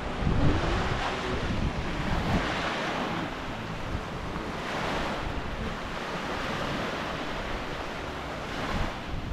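Small waves breaking and washing up a sandy shore. The hiss of surf swells and fades every few seconds. Wind buffets the microphone with a low rumble, strongest in the first second.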